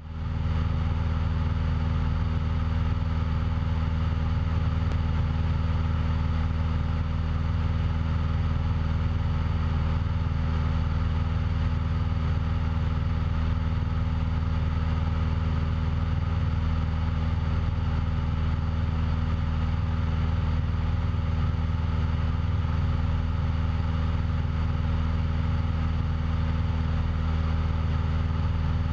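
Cessna 172's piston engine and propeller running steadily in flight, a constant low drone, heard from a camera mounted on the outside of the aircraft.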